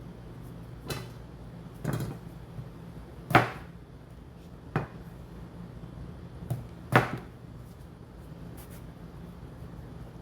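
Kitchen handling sounds: about six knocks and clatters of dishes, utensils or cupboard doors being moved and set down, the loudest about three and a half seconds in and another near seven seconds, over a steady low hum.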